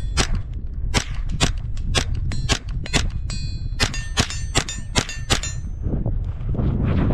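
Rapid semi-automatic gunfire, about fifteen shots at two to three a second, with a metallic ringing after several of the shots in the middle. The shooting stops about five and a half seconds in.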